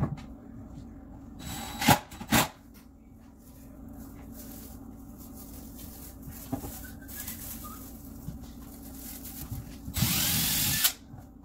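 Cordless drill driving screws inside a kitchen cabinet box. A short whirr and two sharp knocks come about two seconds in, then a steady run of about a second near the end.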